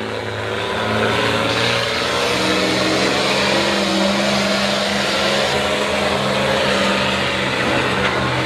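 4x4 pickup truck engine running hard at high, fairly steady revs while pulling the weighted sled, getting louder about a second in.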